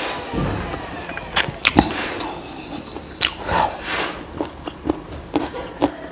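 Close-miked chewing of crispy breaded chicken: irregular sharp crunches and wet mouth clicks.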